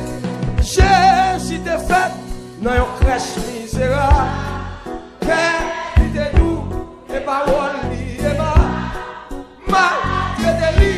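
Haitian Creole gospel worship song: a singer's voice with wavering vibrato over a backing band with bass and a steady drum beat.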